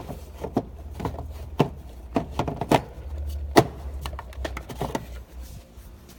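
Irregular sharp clicks and knocks of plastic and metal being handled: a dead battery pack being swapped out of a cordless cutting tool for a fresh one.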